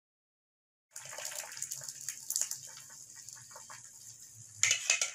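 A pot of vegetable broth bubbling on the stove while a spoon scrapes thick blended spice paste out of a blender jar into it, with small clicks and scrapes of metal and glass. It starts about a second in, and the scraping and clicking grows louder near the end.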